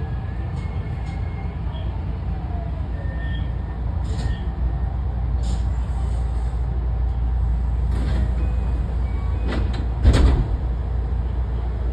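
Running sound inside a JR West 207 series 2000 subseries motor car with a Toshiba IGBT VVVF inverter, slowing on the approach to a station: a steady low rumble of wheels and motors with a faint falling whine. A short loud burst of noise comes about ten seconds in.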